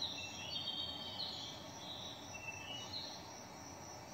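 Faint, high-pitched chirping calls, short ones coming irregularly every half second or so, over a low steady hiss.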